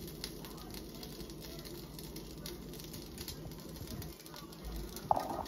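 Taquitos frying in a skillet: a steady crackling sizzle with scattered small pops. About five seconds in there is a short, sharper sound as a utensil touches the pan.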